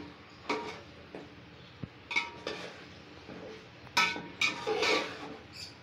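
Metal ladle clinking and scraping against the side of a large metal cooking pot while stirring chicken pieces in masala. There are about five sharp clinks at uneven intervals, some with a short metallic ring; the loudest comes about four seconds in.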